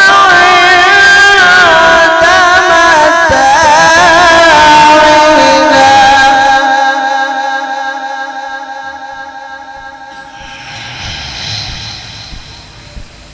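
A man's Quran recitation (tilawat) into a microphone, sung in a long, ornamented melodic phrase with the pitch wavering and turning. About six seconds in, the last note is held and then fades away over several seconds.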